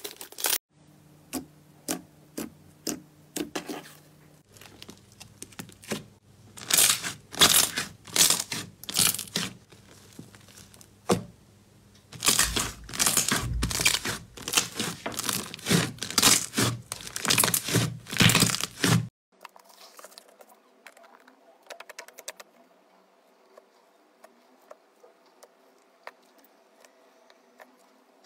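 Hands squeezing and kneading slime, making quick sharp clicks and pops in irregular clusters as trapped air bursts. After about two-thirds of the way through, the sound drops to a few faint clicks.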